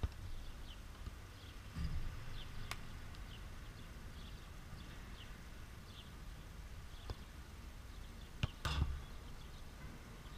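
A few sharp knocks and heavier thumps as a football is kicked about on artificial turf, over steady outdoor background noise. Short falling bird chirps recur about once a second, with the loudest thump near the end.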